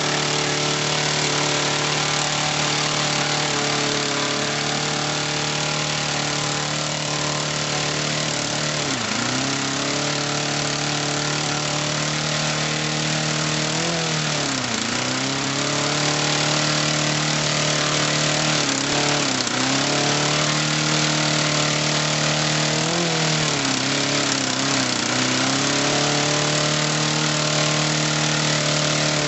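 Home-built 10cc four-stroke glow-plug model engine (1-inch bore and stroke, air-rifle silencer on the exhaust) running steadily on the bench. From about nine seconds in, its speed dips briefly and picks up again several times, and it runs a little louder in the second half.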